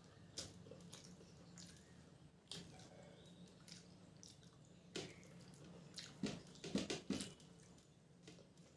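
Wet mouth sounds of someone eating rice with curry: soft chewing with scattered lip smacks and clicks, a quick cluster of louder smacks about six to seven seconds in.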